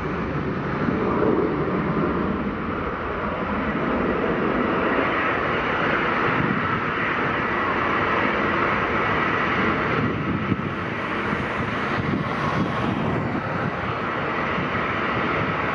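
Airliner's engines running, a steady loud noise that holds level throughout.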